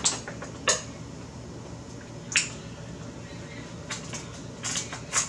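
Wet chewing with sharp mouth clicks, then near the end kitchen shears snipping through a cooked king crab leg's shell, a few short crunchy snips.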